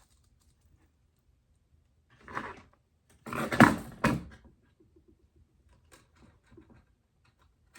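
Hands handling small parts: two bursts of rustling and clatter, a short one about two seconds in and a louder, longer one at about three and a half seconds, followed by faint small clicks.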